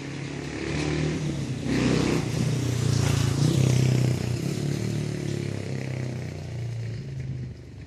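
An engine running, with a steady low drone that grows louder about a second in, is loudest for a couple of seconds, then drops away near the end.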